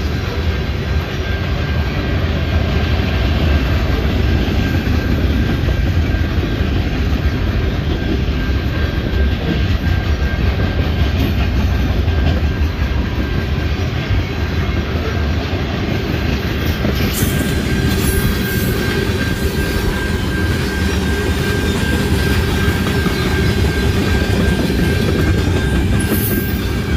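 Freight cars (loaded tank cars, then centerbeam lumber flatcars) rolling past at a steady speed: a continuous rumble of steel wheels on rail with a faint steady high-pitched ring.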